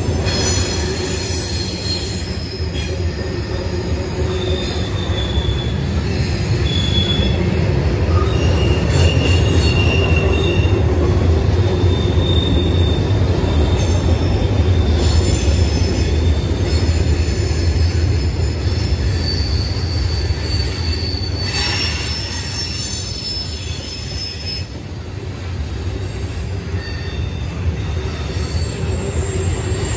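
Norfolk Southern freight cars rolling across a steel bridge overhead: a steady, deep rumble, with short high-pitched wheel squeals at several pitches coming and going.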